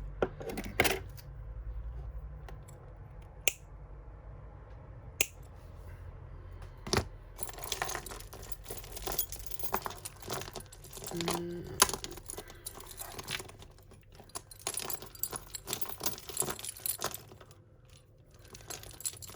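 Tangled costume jewellery chains and beads jingling and clinking as they are handled and pulled apart. A few separate sharp snips come from cutters going through jewellery wire.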